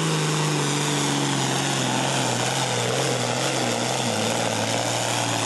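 Super Farm class pulling tractor's diesel engine running flat out while it drags a weight-transfer sled, a steady loud drone whose pitch slowly sinks as the sled's load builds.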